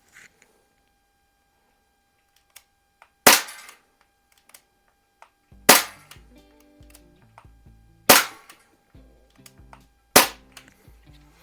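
Four shots from a BB pistol, each a sharp crack with a short ring-out, evenly spaced about two and a half seconds apart. Background music comes in after the first shot.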